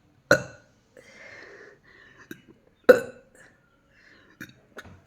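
Two short, loud forced burps about two and a half seconds apart, with a third beginning right at the end. They are artificial burps brought up by swallowing air, with no fizzy drink, and are hard to force out.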